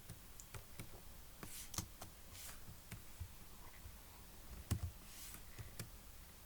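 Quiet room tone with faint, scattered short clicks, about nine in all, the loudest pair about three-quarters of the way through.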